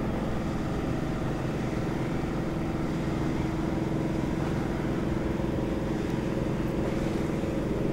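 An engine running steadily, a constant low drone that holds one pitch throughout.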